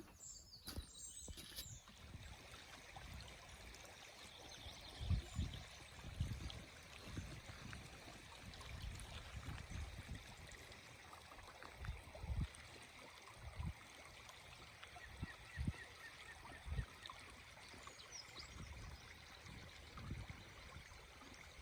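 A stream trickling steadily, with gusts of wind buffeting the microphone off and on and a short run of faint bird chirps about two-thirds of the way through.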